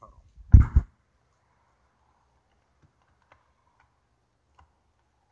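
Two quick, loud knocks about half a second in, then a few faint clicks: plastic parts of an aftermarket car stereo being handled and set into place in the dashboard.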